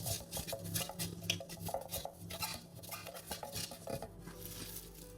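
A spoon clinking and scraping against a cup and container in quick, irregular strokes as ground star anise powder is spooned into a measuring cup.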